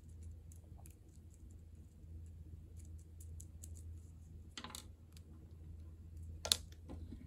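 Light scattered clicks and taps of tiny plastic pebbles and a miniature plastic pot being handled, a wooden pick pressing the pebbles into place. Two sharper clicks come about four and a half and six and a half seconds in, over a low steady hum.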